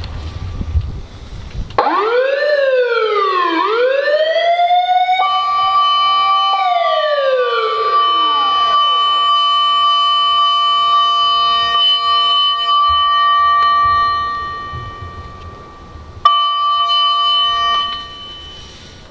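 A fire truck's electronic siren, worked from the dash control panel. About two seconds in, a wailing tone sweeps up and down twice, rises again, holds and then falls away. A steady tone comes in under it and holds, fades, then sounds again briefly near the end.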